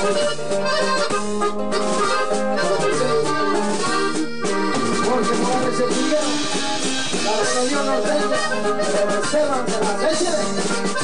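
Norteño band playing an instrumental break between sung verses: a diatonic button accordion carries the melody over guitar accompaniment.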